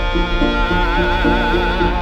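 Live alternative folk band music: a long held melody note with a wavering vibrato over a lower line of short repeating notes.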